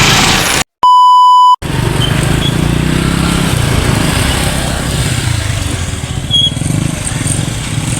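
A loud, pure electronic beep tone lasting under a second, about a second in, right after a brief cut to silence. It is followed by a steady low rumble of vehicle engines.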